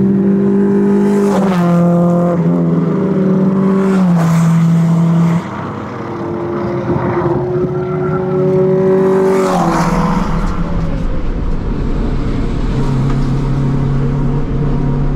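Honda Civic race cars with D-series four-cylinder engines running hard past the trackside, one after another, each engine note dropping in pitch as the car goes by. Near the end, a steadier engine note heard from inside a car's cabin.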